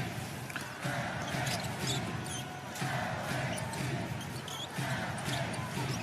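A basketball being dribbled on a hardwood court during live play, bouncing at about two to three times a second. Steady arena crowd noise sits underneath, with short high squeaks scattered through.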